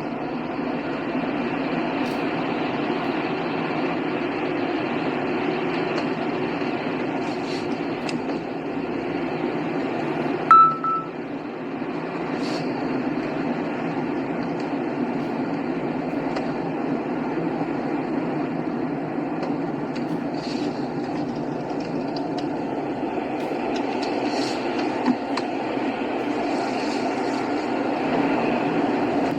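A car driving along a highway: steady road and engine noise, with one short, loud beep about ten seconds in.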